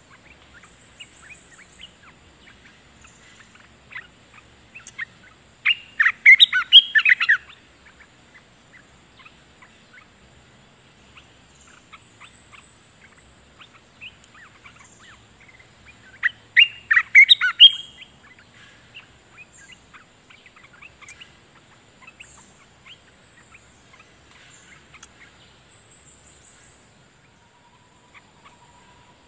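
Olive-winged bulbul singing: two loud, rich bursts of song about ten seconds apart, with soft scattered chirping between them.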